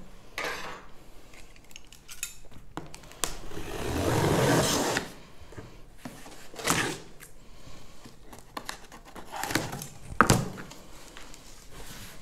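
A blade cutting through the packing tape on a large cardboard box: one long scraping rasp of about two seconds, then shorter scrapes and knocks as the cardboard flaps are pulled open.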